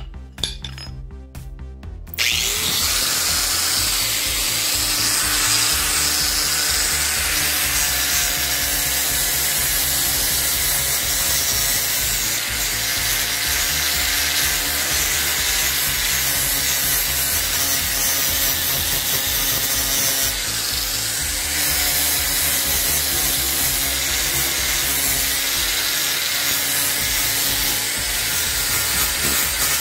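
Angle grinder with an abrasive disc grinding the steel head of a claw hammer. It starts about two seconds in and then runs steadily, with brief slight dips as the disc's contact with the metal changes.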